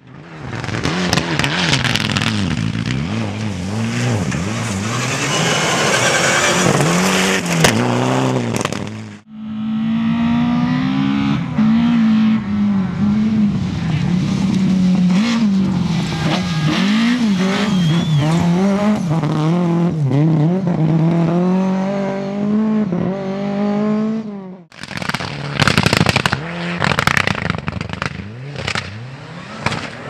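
Rally car engines at full throttle on a loose dirt stage, revving up and falling back through gear changes, in three separate passes cut hard one after another at about nine and twenty-five seconds. The long middle pass is a Lada rally saloon's four-cylinder engine, its note wavering as the car slides through the dirt. The short last pass is a Mitsubishi Lancer Evolution, with dense crackle and spray.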